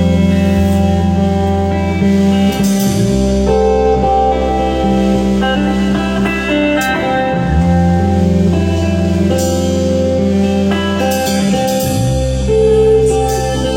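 Instrumental music with long held bass notes that change every few seconds under higher sustained notes.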